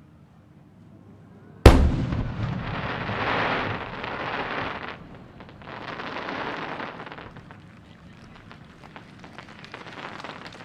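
Fireworks display: a large aerial shell bursts with one sharp, loud boom a little under two seconds in, followed by a long crackling hiss that swells twice and thins into scattered small pops.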